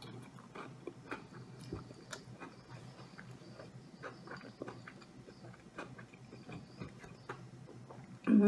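Close-up chewing of food, with soft irregular mouth clicks and smacks over a faint steady hum. A hummed note starts right at the end.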